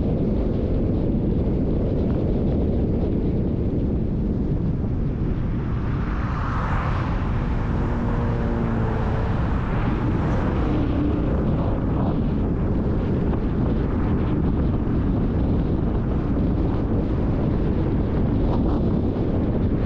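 Steady wind buffeting on the microphone and road rumble from a car driving along a city boulevard, with a passing engine swelling and fading about a third of the way in.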